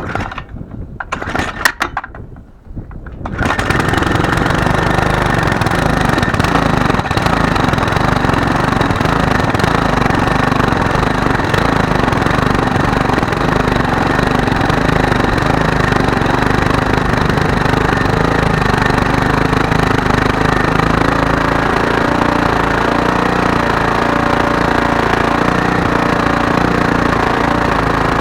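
Small lawnmower engine being pull-started: a few seconds of uneven sputtering, then it catches about three and a half seconds in and runs steadily, freshly refuelled after it had died.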